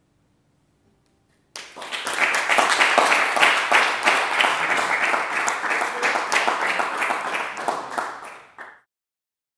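Applause, a dense patter of hand claps that starts suddenly about a second and a half in and dies away near the end.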